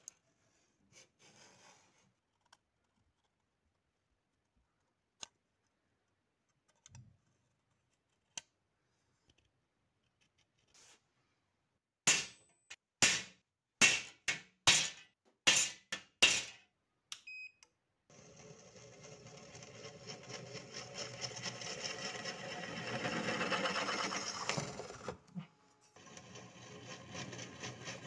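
A handful of faint scratches and ticks as the metal plate is marked out. About halfway through come roughly eight sharp metallic hammer taps on a punch, marking hole centres in the perforated metal plate. An electric drill then runs and bores into the plate, stopping briefly near the end before starting again.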